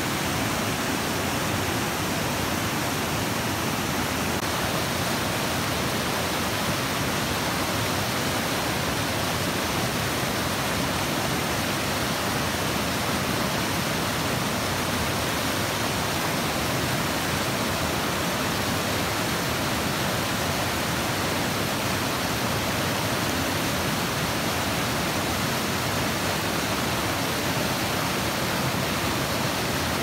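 River water rushing over rocks in rapids: a steady, unbroken noise of white water.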